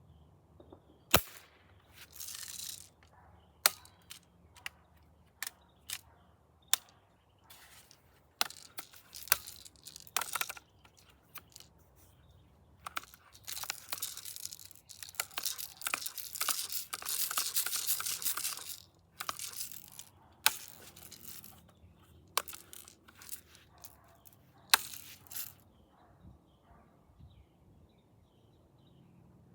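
A pump BB gun being handled and readied: a string of sharp clicks, the loudest about a second in, with rustling and scraping, and a longer noisy stretch in the middle.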